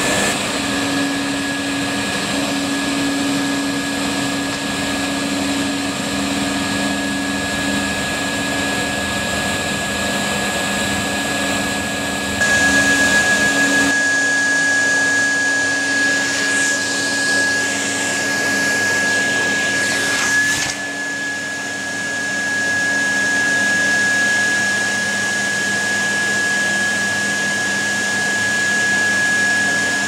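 Numatic tub vacuum cleaner running steadily: a constant motor whine over the rush of air through the hose. The airflow grows louder about twelve seconds in and dips briefly around twenty seconds.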